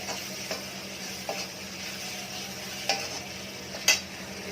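Onion, peas and capsicum with ginger-garlic paste sizzling in oil on a tawa, being stirred, with a few short taps or scrapes of the spatula on the pan, the sharpest near the end.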